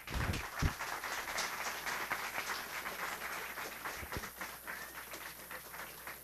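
Audience applauding, a dense patter of many hands clapping that thins out and dies away near the end. A couple of low thumps sound through it, one shortly after it starts and one about four seconds in.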